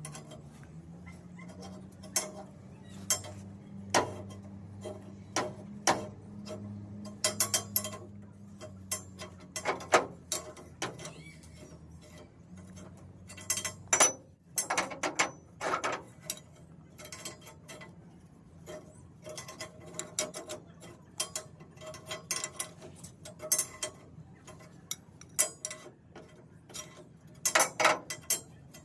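Irregular metallic clicks, taps and knocks of iron parts and hand tools being handled and struck in a metal workshop, over a low steady hum that fades out about halfway through.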